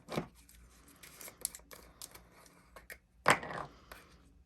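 Small objects being handled and set down: scattered clicks and rustles, with a louder knock about three seconds in.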